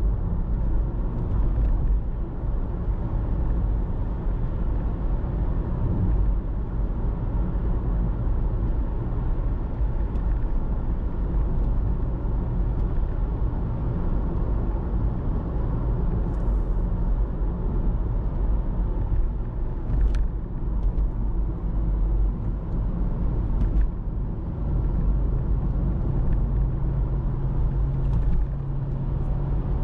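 Steady low rumble of a car driving on city streets: road and engine noise, with a couple of faint ticks about two-thirds of the way through.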